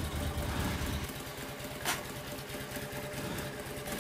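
Harley-Davidson big-twin V-twin engine of a kick-start-only chopper idling steadily. About a second in, the deep low rumble drops away, and a single sharp click comes near the middle.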